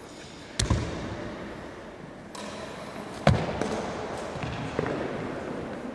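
Thuds and footsteps of sports shoes on a sports-hall floor. Two sharper thuds come about half a second in and a little past three seconds, then a few lighter steps, all ringing in the hall's echo.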